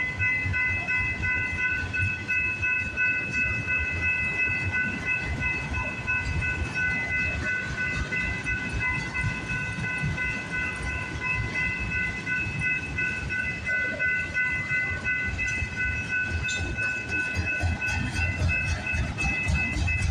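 Freight train rolling slowly past, its cars rumbling and clacking over the rails, with a steady high multi-tone ringing throughout.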